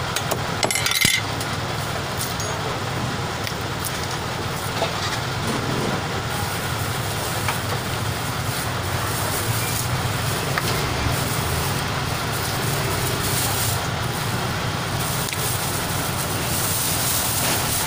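Steady traffic hum and market background noise. A few sharp knocks come about a second in, from a butcher's cleaver coming down on pork on the tiled counter.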